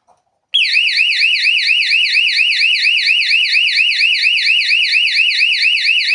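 Duet S-09S-230 220 V electronic fire-alarm siren sounding: a loud, high-pitched tone warbling rapidly up and down about six times a second. It starts abruptly about half a second in.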